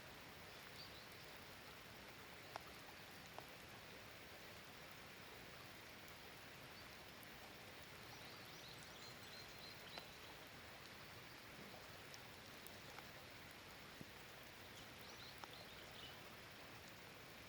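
Steady light rain, faint overall: a soft hiss with scattered single drops ticking. A few short runs of faint high chirping notes come and go, about a second in, near the middle and near the end.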